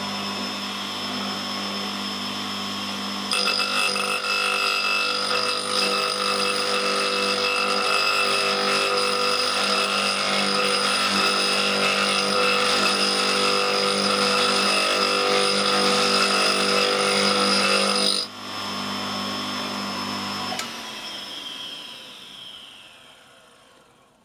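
Electric motor of a tool and cutter grinder running with a cup grinding wheel spinning. About three seconds in, a harsher, louder hiss of grinding joins as the high-speed-steel parting-off tool is held to the wheel, cutting off suddenly about 18 seconds in. The motor then runs alone briefly before it is switched off and winds down near the end.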